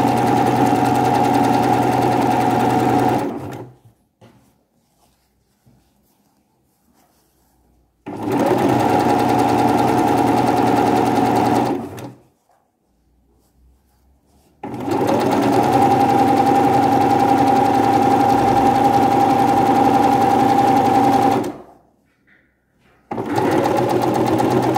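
Electric sewing machine stitching a seam in four runs with stops between them. Each run winds up in pitch as the motor comes to speed, then holds a steady hum and needle rattle until it stops.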